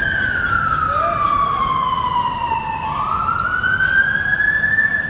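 Norwegian police car siren sounding a slow wail: one tone falling steadily for about three seconds, then rising back up.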